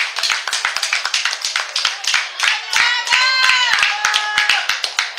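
Spectators clapping, a scattered, uneven round of hand claps. A shouted voice rises over it about three seconds in.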